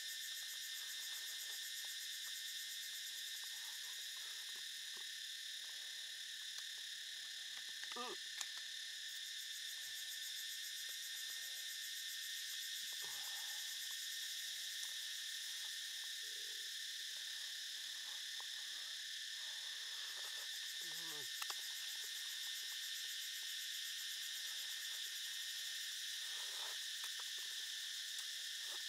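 Steady, high-pitched chorus of forest insects droning without a break, with a few faint brief sounds over it.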